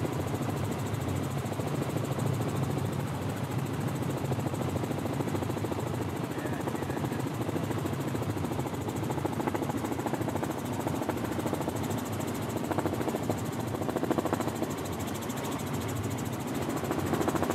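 Robinson R44 helicopter's engine and rotor running steadily at a constant level, with a fine, rapid, even beat throughout.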